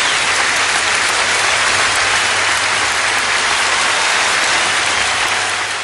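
Applause: dense, steady clapping.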